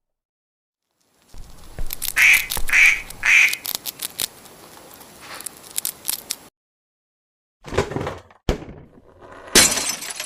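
A duck quacking three times in quick succession, with scattered clicks and knocks around the calls.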